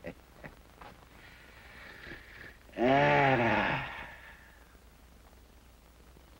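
A man snoring in his sleep: a few fading short puffs, a hissing breath that grows louder, then one loud, drawn-out snore about three seconds in that lasts about a second.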